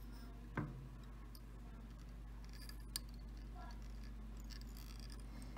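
Small handling sounds of fly tying: a short knock about half a second in, a sharp click about three seconds in, and faint ticks as a thread bobbin is worked around a hook in the vise, over a steady low hum.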